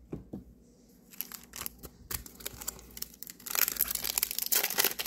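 Two soft taps, then the foil wrapper of a trading-card booster pack crinkling and tearing open, the crinkle growing loud and dense about three and a half seconds in.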